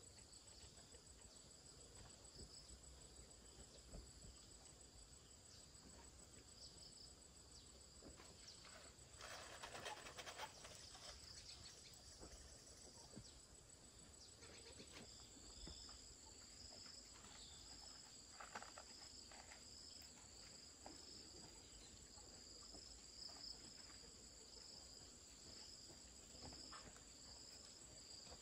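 Faint insects chirring: a steady high-pitched tone, joined about halfway through by another insect pulsing about once a second, with a few soft rustles.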